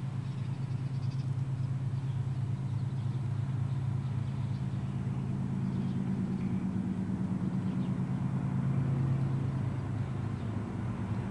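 Low, steady diesel engine rumble from an approaching freight train's locomotives, not yet in sight, slowly growing louder.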